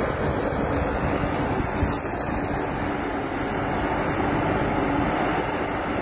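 Diesel engine of a Çukurova JMac 888 backhoe loader running steadily while the backhoe arm digs and lifts, with a faint steady tone over the engine. Wind rumbles on the microphone.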